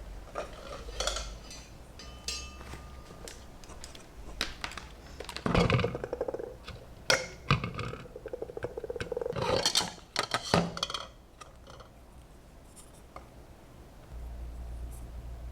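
Small hard objects and tools being handled: a series of clicks, knocks and clinks, with two short runs of quick rattling near the middle.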